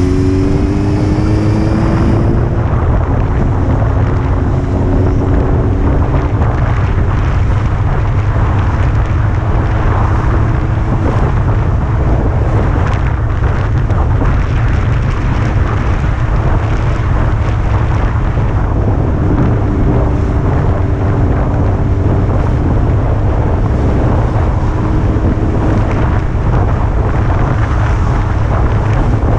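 Honda CBR600 sport bike riding at a steady cruise. Its inline-four engine note rises for the first couple of seconds, then holds level under a loud, steady rush of wind buffeting the microphone.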